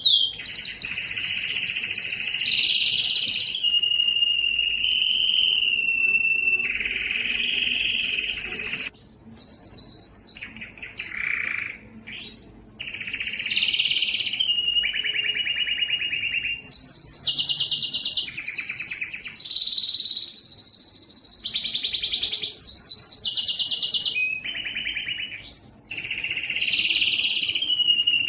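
Domestic canary singing a long, continuous song of rapid trilled rolls alternating with held whistled notes, broken by a couple of quick upward-sweeping glides.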